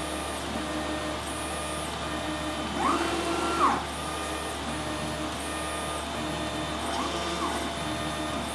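Prusa i3 3D printer printing the first layer of a test print: its stepper motors whine at shifting pitches as the print head moves back and forth, each move ramping up, holding and ramping down in pitch, over a steady low hum. One faster, higher, louder move comes about three seconds in.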